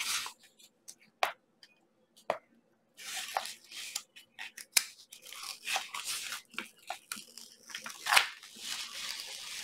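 Wrapping and cover sheet of a rolled diamond-painting canvas crinkling and rustling as hands unroll it and peel it open. A few sharp ticks come first, then about three seconds in a dense crinkling with sharper crackles.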